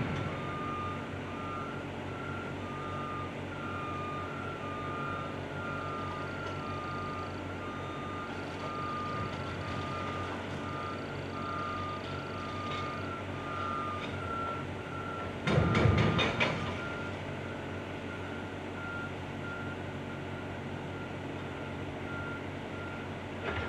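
Two backup alarms on construction machinery beeping at slightly different pitches, with a steady diesel engine rumble underneath; one alarm stops a little over halfway through. About two-thirds of the way in comes a loud burst of rapid knocking lasting about a second.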